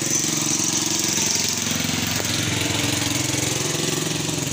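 A small engine running steadily at a constant speed, with an even high hiss over it.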